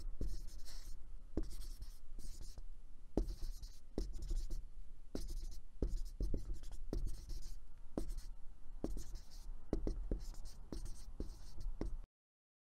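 Felt-tip marker scribbling across a drawing surface in a quick series of short scratchy strokes with light taps of the pen tip between them. It cuts off suddenly near the end.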